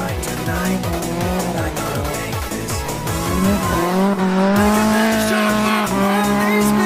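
Drift car sliding with its engine revving high and its tyres squealing, the engine note rising about three and a half seconds in and then holding. Background music with a steady thudding beat plays over it.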